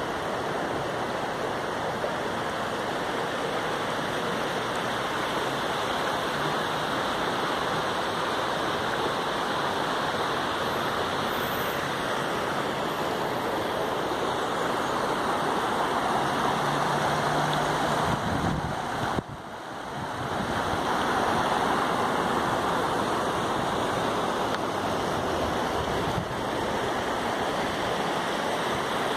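Shallow river water running steadily over a rocky bed, a continuous rushing that briefly drops away about two-thirds of the way through.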